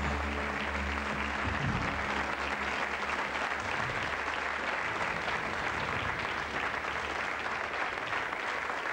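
Studio audience applauding. The last low notes of the song fade out underneath it in the first couple of seconds.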